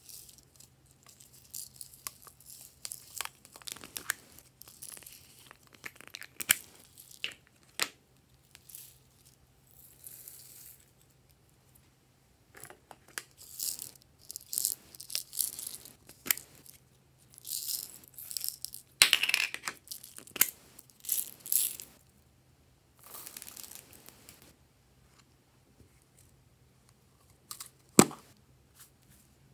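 Hard plastic capsule eggs handled close up: irregular clusters of clicks, rattles and scraping of plastic on plastic. A single sharp click near the end is the loudest sound.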